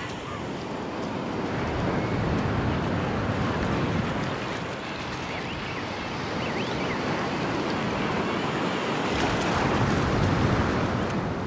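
Ocean surf breaking and washing onto a beach: a steady rush of waves that swells louder twice, once a couple of seconds in and again near the end.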